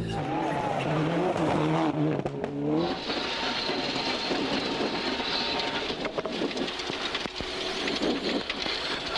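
Rally car engine revving, its pitch rising and falling through the gears for about three seconds. It gives way to a steadier, dense rush of engine and road noise.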